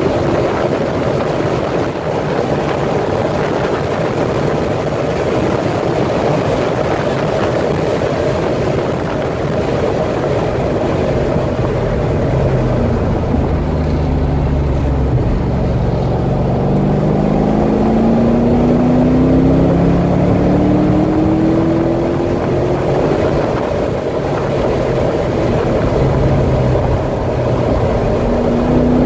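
Chevrolet Corvette C6 Z06's V8 engine running hard under heavy wind and road noise, its note climbing steadily from about halfway through as the car accelerates.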